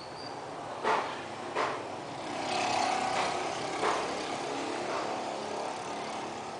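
A road vehicle passing, its noise swelling and fading over two or three seconds in the middle. Three sharp knocks come in the first four seconds, and there is a brief high chirp at the very start.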